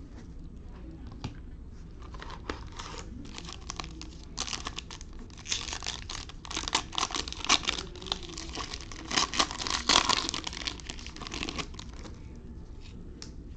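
A 2021 Panini Optic basketball retail card pack being torn open, its wrapper crinkling in a dense run of crackles that is busiest from about five to ten seconds in.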